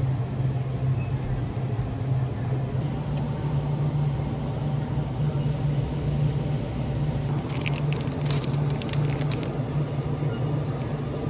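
A steady low hum throughout, with a short run of plastic crinkling about two-thirds of the way in as a plastic shopping bag is handled.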